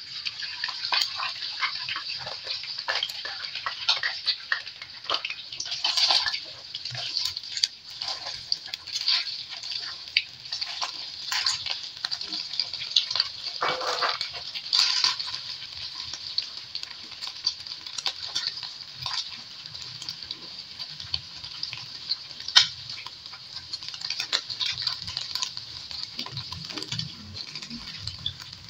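Beaten egg sizzling steadily in hot oil in a wok as it is scrambled, with a silicone spatula scraping and tapping against the pan. One sharper knock comes about three quarters of the way through.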